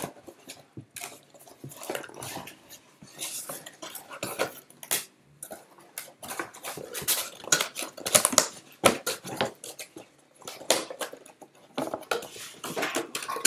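A thin printed cardboard box being bent, folded and creased by hand: irregular rustling with many sharp crackles and snaps of the card.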